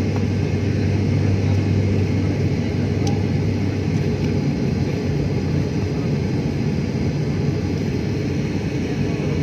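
Airliner cabin noise at a window seat in flight: a steady rumble of engines and airflow, with a low hum that drops away about halfway through.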